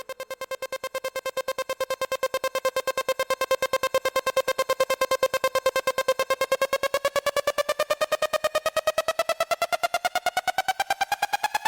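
Electronic dance music: one synth note pulsing rapidly and growing louder, its pitch rising toward the end like a build-up.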